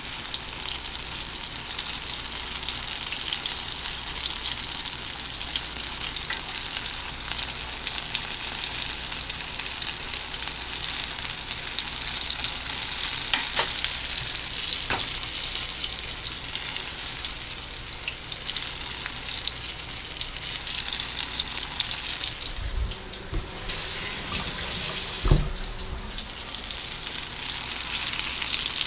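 Flour-breaded mushroom bites deep-frying in hot oil: a steady sizzle, with a few light clicks and a dull knock near the end.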